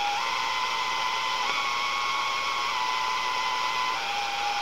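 Old radio receiver giving a steady hiss of static with a whistling tone that jumps up and down between a few pitches every second or so.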